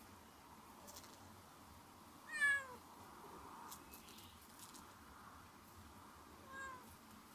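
Domestic cat meowing twice: a loud meow falling in pitch a little over two seconds in, then a shorter, quieter one near the end.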